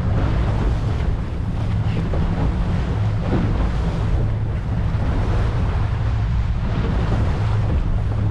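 Wind buffeting the microphone at the bow of a power catamaran running offshore, over a steady low rumble and the rush of water past the hulls.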